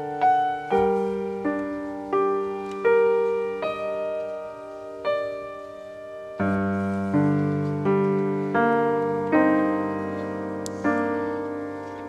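Piano playing a slow melody: single notes struck about every three quarters of a second, each fading away, over held bass notes. A deeper bass note enters about six seconds in.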